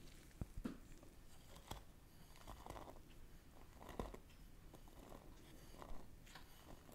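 Faint sharp clicks of glass bowls being handled, then soft swishes as powdered sugar slides out of a bowl onto egg whites in a glass bowl.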